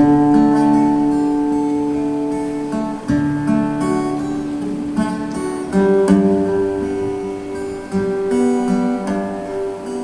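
Acoustic guitar music: chords ring out, with a new chord struck every one to three seconds.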